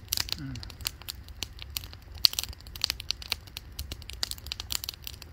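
Wood campfire crackling with many sharp pops, mixed with the crinkle of a foil freeze-dried meal pouch being handled while eating.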